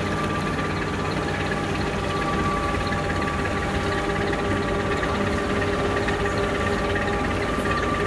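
Passenger excursion ship's diesel engine running steadily at close range while manoeuvring at a pier: a low hum with several steady tones above it.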